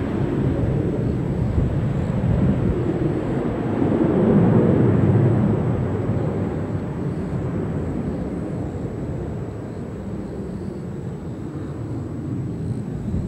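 Boeing 737-800's CFM56-7B turbofan engines at takeoff thrust as the jet climbs away after liftoff: a deep, rumbling jet noise that swells to its loudest about four to five seconds in, then slowly fades as the aircraft recedes.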